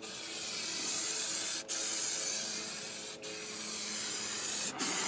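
Aerosol can of high-strength spray adhesive hissing in long, steady sprays, broken by three brief pauses.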